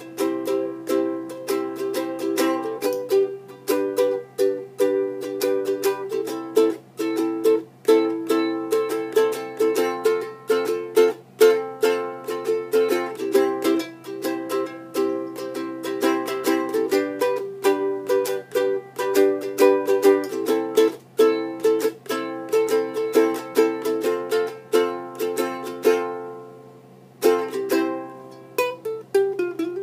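A 3D-printed soprano ukulele strummed in a steady run of chords. About 26 seconds in the strumming stops and the chord rings out for a moment, then the playing starts again.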